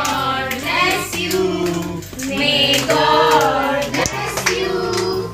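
Voices, children among them, singing a birthday song along with music, and hands clapping along.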